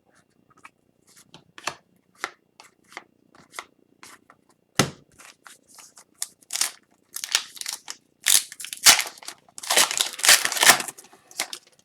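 Hockey trading cards and their foil pack wrappers being handled: quick clicks and rustles as cards are flicked through, and one sharp knock about five seconds in. Near the end comes a longer stretch of crinkling and tearing, like a pack wrapper being ripped open.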